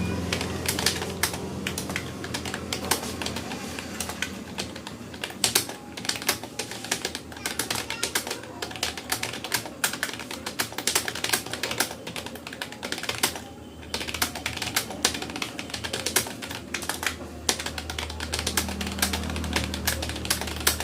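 Fast touch typing on a Rapoo computer keyboard: a dense, steady stream of key clicks, with a brief pause about two-thirds of the way through.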